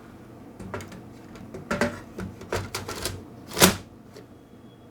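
Toner cartridge being fitted into a LaserJet printer: a string of irregular plastic clicks and knocks, with the loudest clunk a little past the middle.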